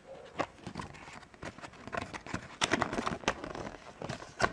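Crinkling and rustling of a LEGO minifigure's foil blind bag and its folded paper leaflet being handled, in a run of irregular crackles that grow louder a little past halfway and again near the end.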